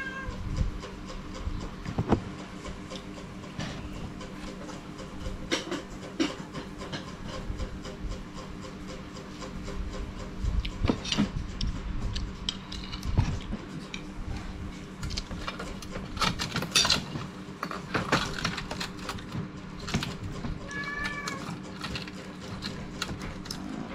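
A metal spoon clinking and scraping on a plate of rice at irregular moments, over a steady low hum. A cat meows once, briefly, near the end.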